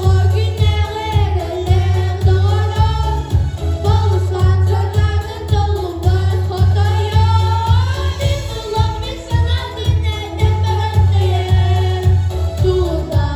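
Boys singing a song in Yakut over a recorded accompaniment with a steady, pulsing bass beat.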